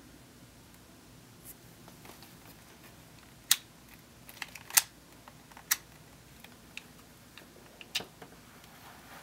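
Metal belt buckle clicking and clacking as it is handled on its leather strap: a handful of sharp clicks, the loudest about three and a half and five seconds in, with softer handling noise between.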